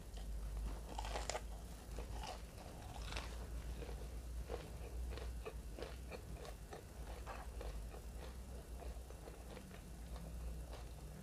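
Close-miked crunching of a breaded deep-fried capelin: loud crisp bites in the first few seconds, then steady chewing with many small crackles of the fried crust.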